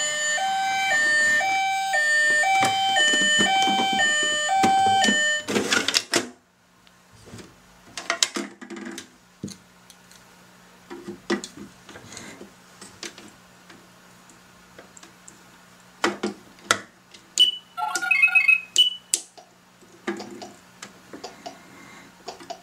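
A Pororo toy ambulance's electronic two-tone siren alternating high and low for about five seconds, then cutting off. After it come light plastic clicks and knocks as the toy's back doors are opened and its stretcher is pulled out, with a short burst of electronic beeping from the toy near the end.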